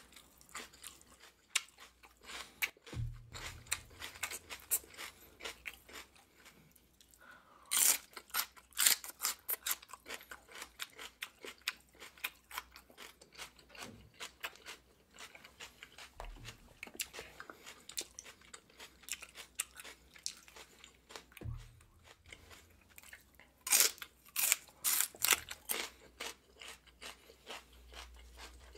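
Close-up crunching and chewing of raw celery stalks: crisp snapping bites, loudest in a cluster about eight seconds in and again around 24 seconds, with quieter chewing crunches in between. Two dull low thumps come about three seconds in and again at about 21 seconds.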